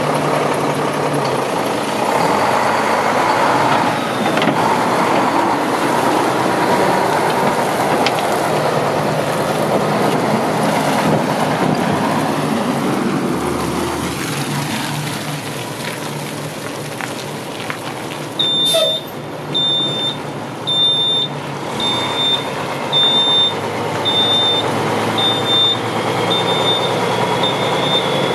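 Diesel engine of a 1995 Mack RD688S tri-axle dump truck running steadily. About two-thirds of the way in, the truck's backup alarm starts beeping evenly, about three beeps every two seconds, the sign that it has been put in reverse.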